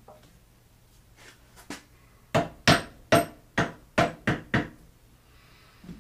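Seven sharp taps in quick succession, about three a second, like a hammer or mallet striking a part of the machine.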